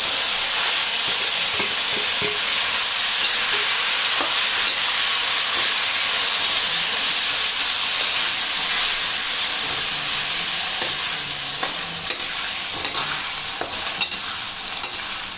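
Loud sizzling and stirring as wet taro-leaf saag fries in hot mustard oil with garlic and red chillies in an iron kadhai. The sizzle eases slowly over the second half, and a few sharp clicks of the spatula against the iron pan come near the end.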